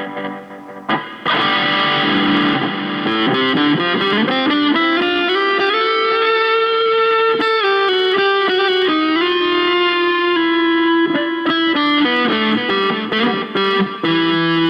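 Electric guitar with P90 pickups played through an amplifier: a chord rings, is struck again about a second in, and then a note slides slowly up in pitch and is held, with more sustained notes after it.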